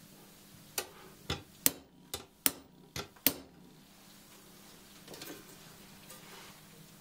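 Small hammer tapping a steel ryoba saw blade, seven sharp light taps at uneven intervals over about two and a half seconds, as the blade is hammered straight on a steel anvil.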